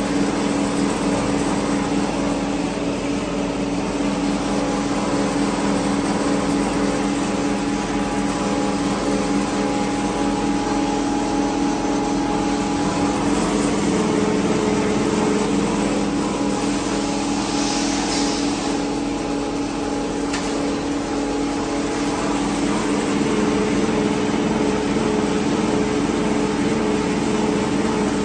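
CNC high-speed wire straightening machine running: a steady mechanical hum and whine with several held tones, and a brief hiss about two-thirds of the way through.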